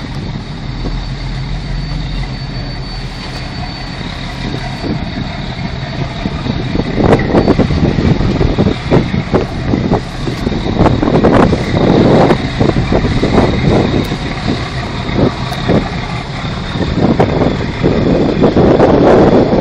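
A passenger ferry's engine running steadily under way. From about a third of the way in, irregular gusts of wind buffet the microphone and become the loudest sound.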